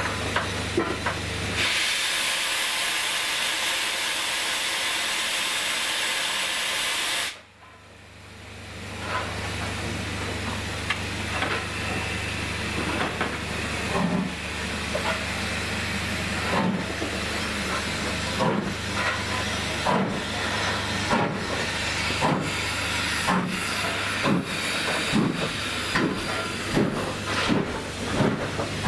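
Ivatt 2-6-2T tank steam locomotive: a loud, steady steam hiss for several seconds that cuts off suddenly, then the locomotive starting away, its chuffs at first slow and gradually quickening.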